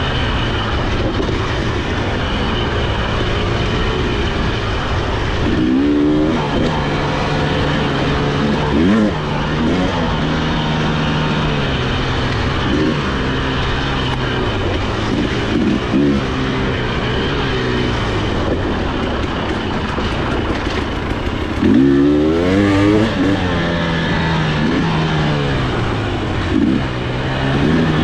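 Husqvarna TE300i two-stroke dirt bike engine running under varying throttle on a trail, its pitch rising and falling as the rider blips and rolls on, with sharp revs about six, nine and twenty-two seconds in.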